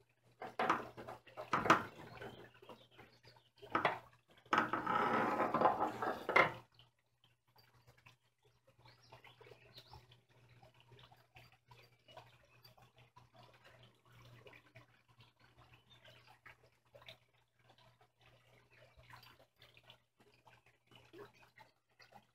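Dry phragmites reed stalks and twine being handled: two louder spells of rustling with clicks in the first seven seconds, then soft, irregular crackling.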